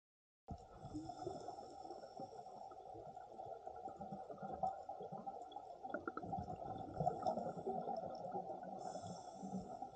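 Muffled, irregular low rumbling and gurgling of water heard through a camera's underwater housing, starting about half a second in, with a faint steady high electronic whine above it.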